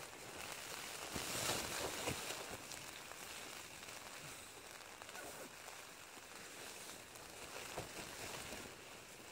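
Faint rain pattering on a tent, with a louder rustle of the tent fabric and a few clicks about a second or two in.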